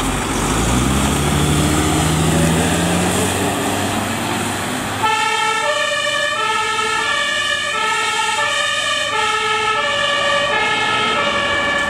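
MAN fire engine's diesel engine rising in pitch as it accelerates away; about five seconds in its two-tone siren switches on, alternating between a high and a low note.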